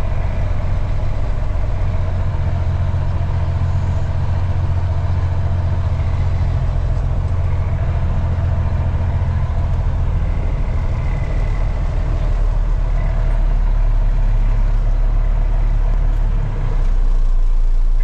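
Dump truck's diesel engine running steadily, heard as a deep drone from inside the cab, growing a little louder about three-quarters of the way through.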